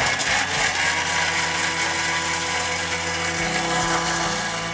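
A Thermomix food processor running its blades at high speed to grind Parmesan: a loud, steady whirr. Its low note shifts slightly about three and a half seconds in.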